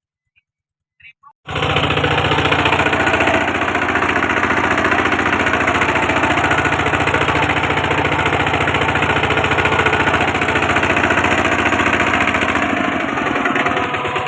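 Kubota walking tractor's single-cylinder diesel engine running hard with a rapid, even chugging. It comes in abruptly about one and a half seconds in, and its note shifts near the end.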